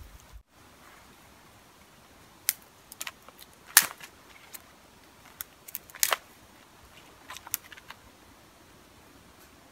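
Small dry twigs snapped by hand: about a dozen sharp, irregular cracks. The loudest comes a little under four seconds in and another strong one near six seconds.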